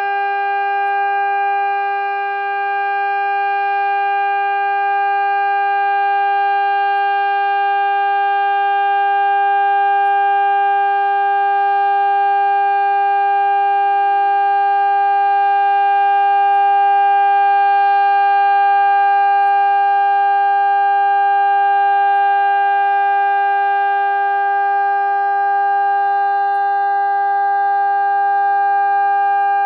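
Warning siren sounding one steady tone, held without rising or falling in pitch.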